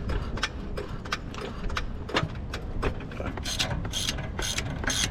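Hand ratchet wrench clicking in a steady run, about four to five clicks a second, as a bolt on the BMW F10's rear wishbone is turned out; the clicks get sharper in the second half.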